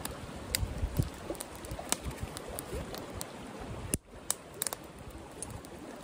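Steady rush of a fast-flowing creek, with sharp, irregular pops and crackles from a small twig campfire. The sound cuts out for an instant about four seconds in, then resumes.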